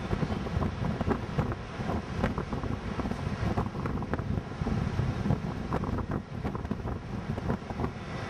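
Chevrolet Monte Carlo SS V8 running steady and fast, its Holley 600 carburetor sticking wide open, with wind buffeting the microphone.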